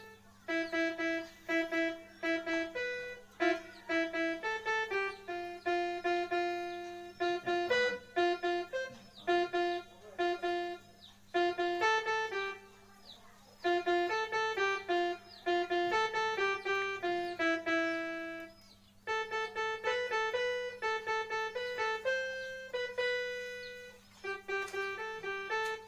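Casio portable electronic keyboard played by hand in a piano voice: a simple melody of single notes in short phrases, with brief pauses between phrases.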